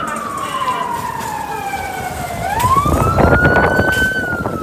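Police car siren wailing. It slides slowly down in pitch, then sweeps back up about two and a half seconds in and holds high. Gusty wind buffets the microphone over the second half.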